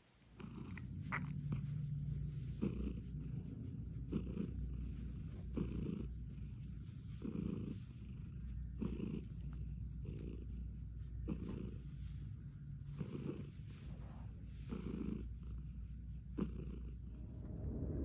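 Domestic cat purring steadily, the purr swelling with each breath about every second and a half.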